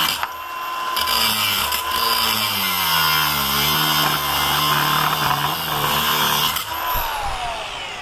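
Milwaukee cordless angle grinder cutting through a steel padlock shackle with a cut-off disc: loud metal grinding, the motor's pitch dipping under load about halfway through. Roughly two-thirds in, the grinding stops and the motor winds down with a falling whine.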